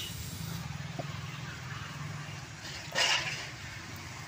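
A steady low rumble, with a faint click about a second in and a short rushing noise about three seconds in.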